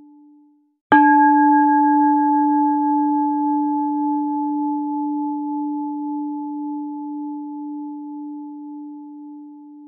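A single bell-like tone struck about a second in: a low ringing note with a few fainter higher overtones, slowly fading. A similar tone is dying away at the start.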